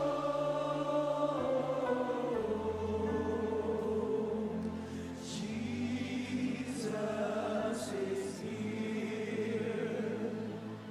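Live gospel worship music: voices singing long held notes over sustained chords, with a bass line that changes every few seconds.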